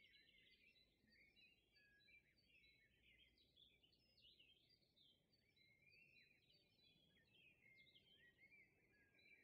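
Near silence, with faint, busy bird chirping throughout: many short, quick rising and falling chirps.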